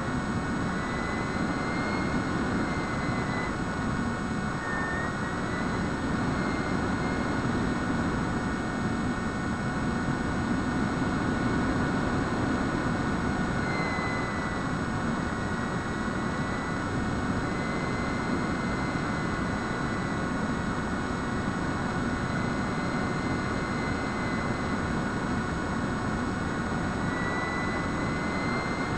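Bixler RC model plane's electric pusher motor and propeller, heard from the onboard camera: a steady whine that wavers slightly in pitch over a loud rush of airflow.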